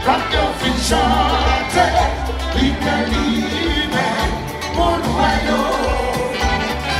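Live Haitian konpa band playing: a lead singer singing over electric guitar, bass and drums.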